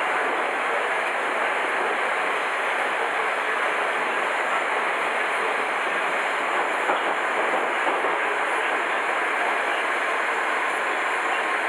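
Tashkent metro train running between stations, heard from inside the carriage: a steady, even running noise of wheels on the rails.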